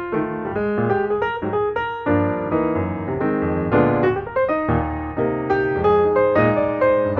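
Background music: piano playing chords and a melody.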